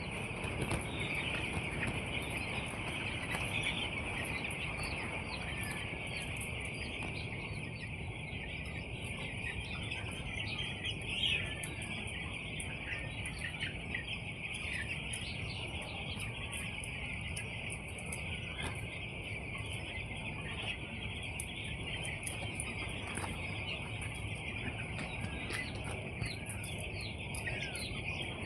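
A crowd of eight-day-old chicks peeping nonstop, a dense chorus of high cheeps, over a steady low background noise.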